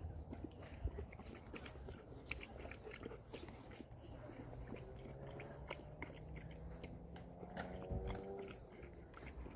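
A dog chewing and gnawing on a plastic water bowl: a run of faint, irregular clicks and crunches.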